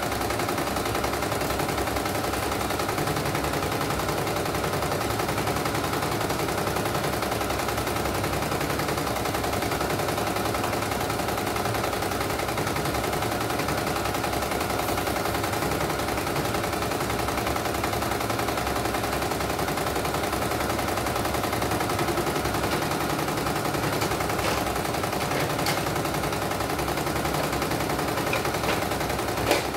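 CNY E900 portable computerized embroidery machine stitching: a rapid, steady needle clatter as the hoop carriage moves the fabric, on a test run after its mainboard was replaced. A couple of sharper clicks come just before the end.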